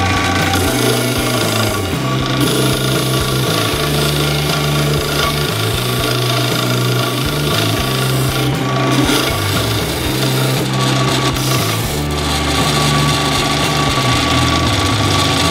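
Homemade drum sanding spindle turning in a drill press, a plywood edge held against the abrasive: a steady rasping hiss of sandpaper on wood over the machine's running hum.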